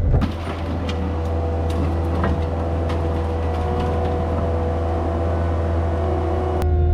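Skid steer engine running steadily with a steady whine above its low drone and a few light knocks and clatters in the first half. Near the end the sound turns duller and a little louder.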